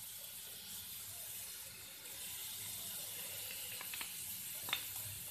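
Grated white radish sizzling steadily in hot oil in a kadhai, with a few faint clicks in the second half.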